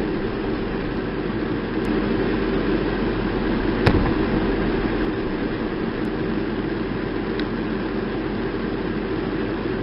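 Armoured military vehicle's engine running with a steady drone, and one sharp crack about four seconds in.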